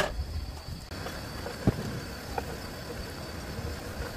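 Cooking utensils knocking and scraping on a griddle pan of stir-fry, with a sharp clack right at the start and another about a second and a half later, over a steady low rumble of wind on the microphone.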